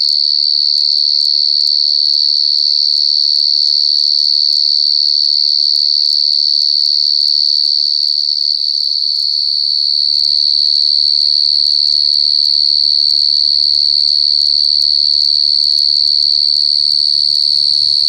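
A burrowing field cricket singing at the mouth of its burrow: one loud, continuous high-pitched trill that never breaks, dipping only slightly in loudness about halfway through.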